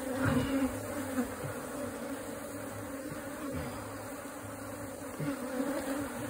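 A disturbed honeybee colony, opened up in a tree trunk during a hive rescue, buzzing in a steady drone whose pitch wavers slightly, with a few soft knocks.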